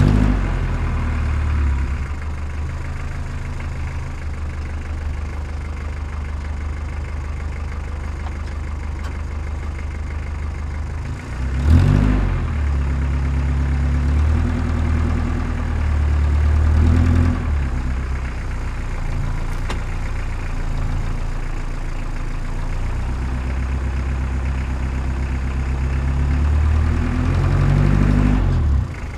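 Heavy diesel engine of earthmoving equipment running steadily, its note shifting a few times as the machine is worked, about twelve seconds in, again a few seconds later and near the end.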